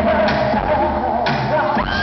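Live K-pop performance played through a hall's PA: women singing into microphones over amplified backing music.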